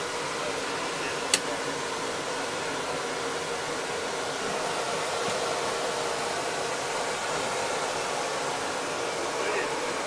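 Steady turbine whine and hiss of a Mil Mi-8 helicopter during start-up, heard inside the cockpit. A single sharp click sounds about a second in.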